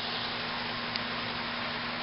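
Outdoor heat pump condensing units running: a steady rush of fan air with a low steady hum, and one small tick about a second in.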